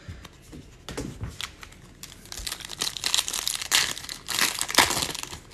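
The shiny wrapper of a Bowman baseball card pack crinkling and tearing as it is opened by hand, a dense crackle in the second half. Near the start, a few light clicks and rustles of a card going into a plastic toploader.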